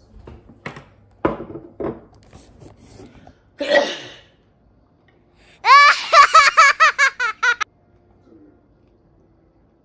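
A burst of high-pitched laughter, about eight quick "ha"s in under two seconds, starting a little under six seconds in. Before it come a few light clicks and a short breathy rush.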